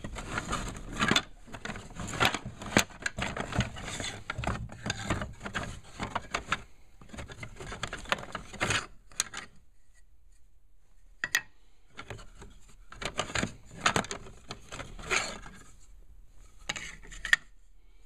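Wooden offcuts knocking, clattering and scraping against each other as a hand rummages through a scrap bin, in bursts with a pause of a couple of seconds about halfway through.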